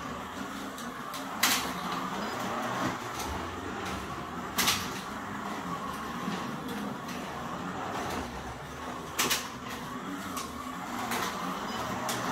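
Carrera Digital 132 slot cars running on the plastic track: a steady electric-motor whine and rumble, broken by a few sharp clacks.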